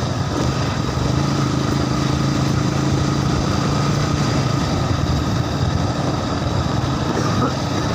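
A vehicle engine running steadily at an even speed, with no clear revving.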